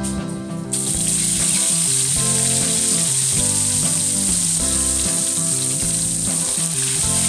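Hot oil in a wok bursting into a loud sizzle as a whole fish goes in, then frying steadily with an even hiss. The sizzle starts suddenly about a second in.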